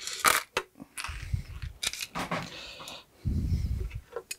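Handling noise: clicks, taps and scrapes of small screws and parts being picked over in a small metal tin and moved about on the bench, with two brief low rubbing bumps.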